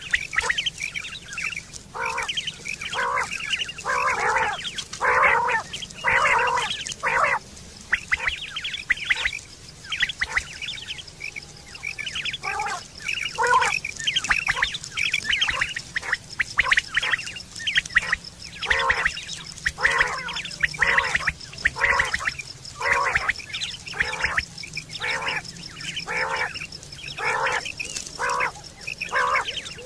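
Common quail calling over and over: short, rasping notes repeated in quick runs, with a brief lull partway through.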